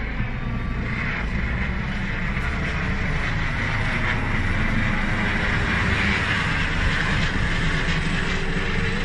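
Air ambulance helicopter flying overhead, with a rapid steady rotor beat and a rushing engine noise that grow louder through the middle as it passes close.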